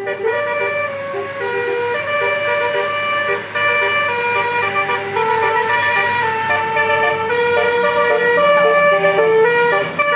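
Telolet multi-tone bus horn playing a tune: a continuous run of held horn notes stepping up and down in pitch, often several notes sounding together.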